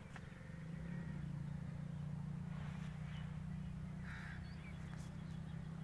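Outdoor field ambience: a steady low rumble, with a few brief bird calls and faint clicks over it.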